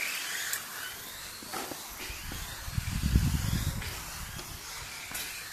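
A 1:10 scale electric RC rally car running on the course, with a high hiss and a motor whine that rises and falls. It is loudest about three seconds in as it passes close, with a low rumble under it.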